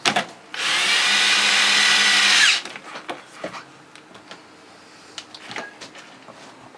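Power drill driving a screw into the reciprocating saw's housing: one run of about two seconds that winds down in pitch as it stops, followed by light clicks of parts being handled.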